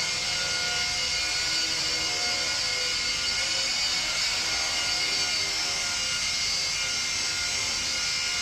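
Small electric RC helicopter (YuXiang F03 four-channel) hovering: its motor and rotors give a steady, high-pitched buzz.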